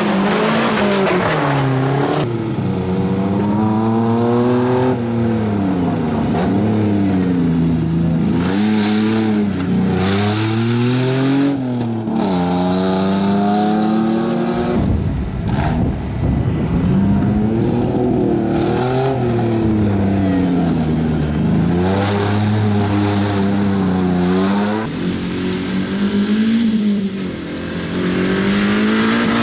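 Offroad rally 4x4 engines revving hard, the pitch climbing and falling again and again as the drivers accelerate and shift, with abrupt switches from one car to another.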